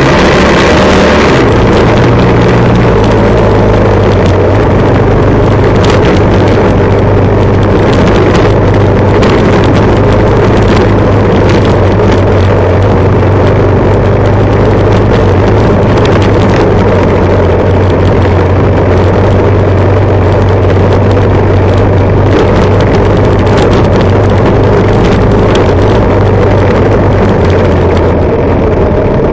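Motorcycle engine running close to the microphone at a steady road speed, its pitch stepping down once about a second in and then holding even, with road and wind noise mixed in.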